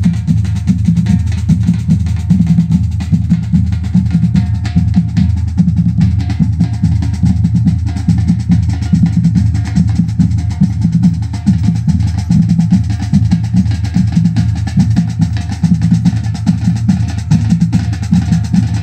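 Marching percussion band of large bass drums and snare drums playing a fast, steady beat without a break.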